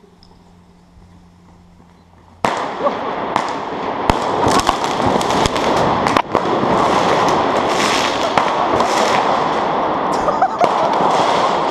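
A firework goes off suddenly about two and a half seconds in: dense, continuous crackling with many sharp pops, echoing inside a concrete cooling tower.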